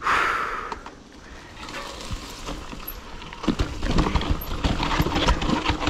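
Mountain bike rolling fast down a rough dirt trail, rattling and clattering: tyres running over rocks, roots and loose ground and the bike knocking, denser and louder from about three and a half seconds in. It opens with a sudden burst of noise that fades over about a second.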